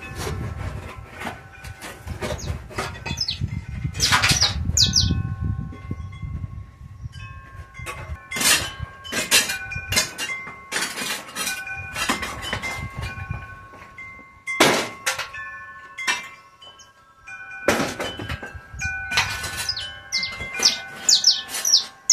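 Wind chimes ringing, several steady tones struck again and again. A low rumble runs through the first several seconds. Quick high chirps from saffron finches come about five seconds in and again near the end.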